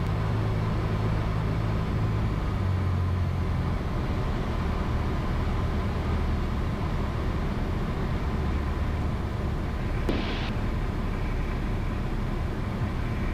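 Cessna 172 engine droning steadily at approach power with airflow noise, heard inside the cabin, with a brief hiss about ten seconds in.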